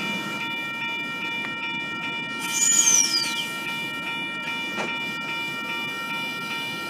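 NSW TrainLink V-set double-deck electric intercity train pulling away, with a steady whine of several high tones over a low rumble. A loud high squeal falls in pitch about three seconds in.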